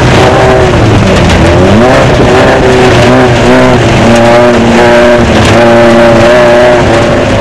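Desert race car's engine running hard, heard loud from inside the car over a constant rush of noise; the revs climb about two seconds in and hold steady and high through the last few seconds.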